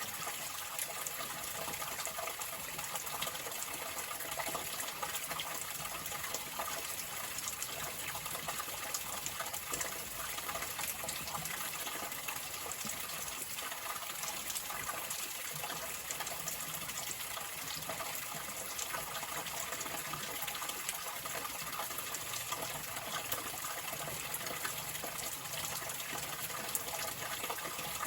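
Flowing water running steadily, an even rushing hiss with no breaks.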